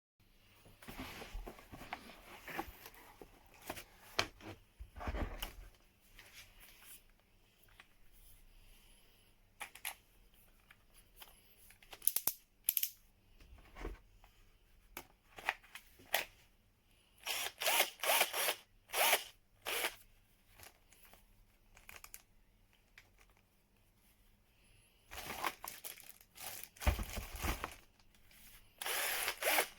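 Handling noises: scattered clicks and short bursts of rustling and scraping, busiest near the middle and again near the end, with no motor running.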